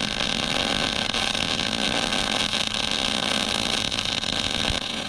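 Millermatic 211 Auto-Set MIG welder arc crackling steadily as it lays a bead of .035 wire on steel plates; the arc cuts off near the end.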